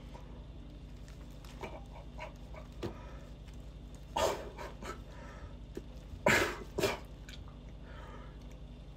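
A man gagging and retching into a plastic-bag-lined trash can, two short retches about four and six and a half seconds in, at an intensely bitter Bitrex-coated mouthful. A steady low hum sits underneath.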